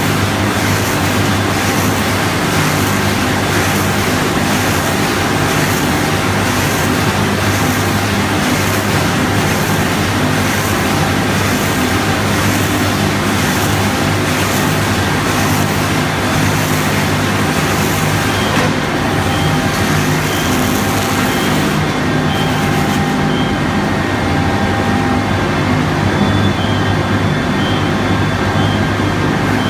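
Goeweil LT Master combined baler-wrapper running steadily, a loud mechanical drone with a low hum and a regular pulsing about one and a half times a second. Short high beeps repeat in the last third.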